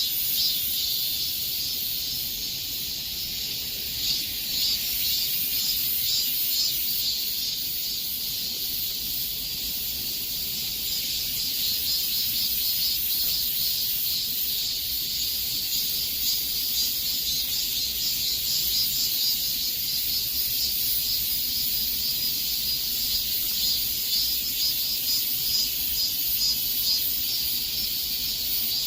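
A chorus of cicadas buzzing: a steady, high-pitched shrill drone with a fast flutter in it.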